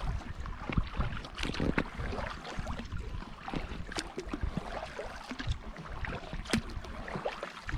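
Kayak paddle strokes in calm water: the blade dipping and pulling, with irregular drips and small splashes, a few sharper drip ticks standing out.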